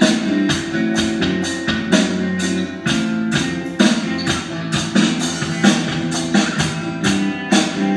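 Alesis electronic drum kit played in a steady beat, with regular drum hits and cymbal strikes, over a backing track with guitar and bass chords.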